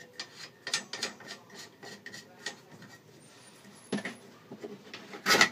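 Small clicks, taps and rattles of a plastic tundish and brass compression fittings being handled and hand-threaded onto copper pipe, with a sharper knock near the end.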